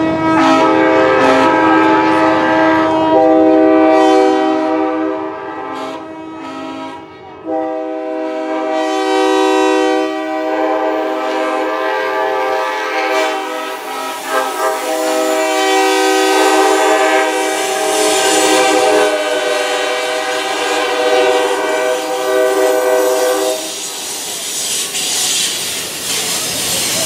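Train air horns blowing a long, continuous horn show: multi-note horn chords held and shifting in pitch several times. The horns stop about 23 seconds in, leaving the rumble and clatter of a passing train.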